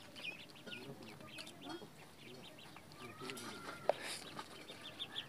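Chickens clucking and chirping faintly, many short calls in quick succession, with one sharp click just before four seconds in.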